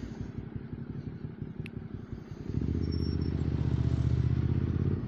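Motorcycle engine running through an Arrow Race-Tech slip-on exhaust: a low pulsing note at first, then the engine note jumps louder about halfway in and builds, dropping off just at the end.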